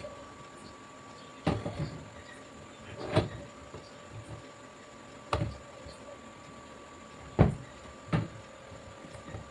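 Five sharp knocks and clacks, a second or two apart, the fourth the loudest: hard objects being handled and set down on a workbench.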